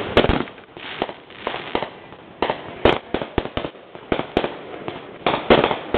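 Fireworks show: aerial shells bursting in quick, irregular succession, about a dozen sharp bangs, with a tight volley about three seconds in and another near the end.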